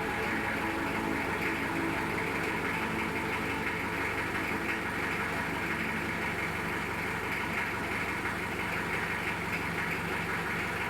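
An engine idling steadily, a fast even rumble with no revs or pauses.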